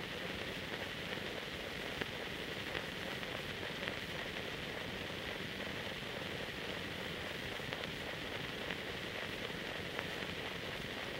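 Steady hiss with faint crackle and a few scattered clicks: the noise of an old archival film transfer that carries no soundtrack.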